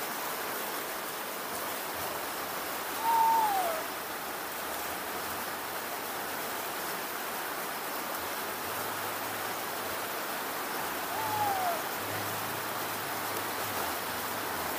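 Steady hiss of falling rain, with a baby macaque giving two short coo calls that fall in pitch, one a few seconds in and one about three-quarters of the way through.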